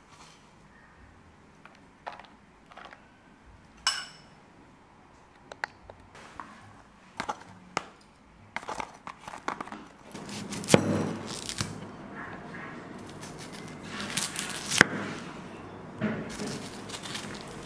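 Dry onion skin being peeled off by hand, papery crackling and tearing with a few sharp snaps, starting about halfway through; before that, only scattered light clicks and taps.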